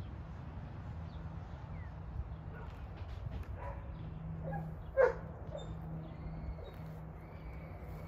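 A dog barks once, sharply, about five seconds in, with a few fainter short yelps just before it. A steady low hum runs underneath.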